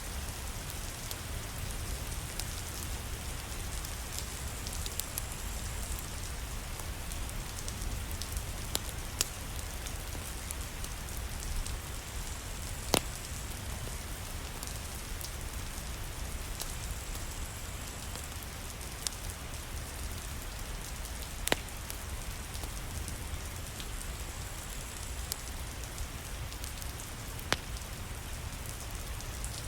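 Steady rain with a low rumble underneath, and every few seconds a single sharp crackle from a wood fire in a fireplace.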